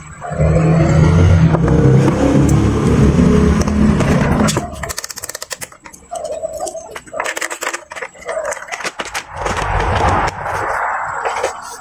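A loud, low droning for the first four and a half seconds, then a run of sharp clicks and rattles as the plastic case of an analog multimeter and its test leads are handled.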